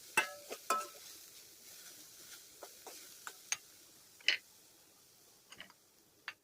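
A stirring utensil knocking and scraping in a kadhai as grated amla and roasted sesame seeds are mixed, in scattered, irregular clicks that are loudest in the first second and grow sparser.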